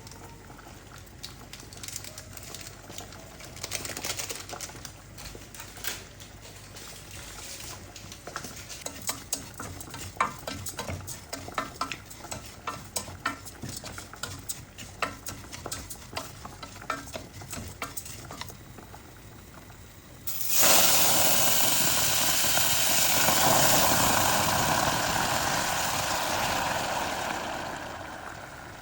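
Risotto being stirred and scraped in a pan, with many small clicks and scrapes. About two-thirds of the way through, liquid is added to the hot pan and it sizzles loudly at once, then slowly dies down near the end.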